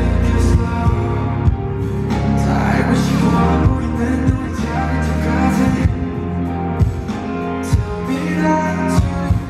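Music with singing and a steady drum beat.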